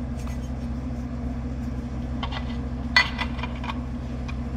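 A steady low machine hum, with a few light metallic clinks of hardware or tools between about two and four seconds in; the loudest clink comes near three seconds.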